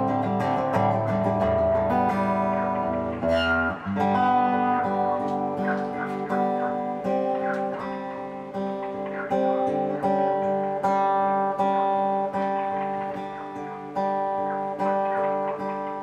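Solo acoustic guitar played live, plucked notes and chords ringing over bass notes, with low bass notes held for the first few seconds before the playing moves on.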